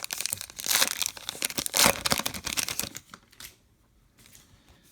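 Baseball card pack wrapper being torn open and crinkled by hand, a dense crackling rustle that stops about three seconds in, leaving only faint handling rustles.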